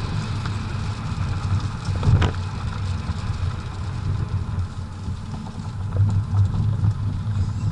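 BMW 535d's twin-turbo straight-six diesel pulling steadily, heard from inside the cabin, with tyre and road noise from the wet track. A single sharp knock about two seconds in.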